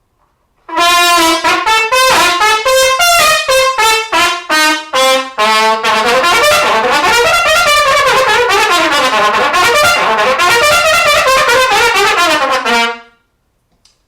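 Solo trumpet: first a string of short, separately tongued notes, then a long stream of very fast multiple-tongued notes in runs that climb and fall, stopping about a second before the end.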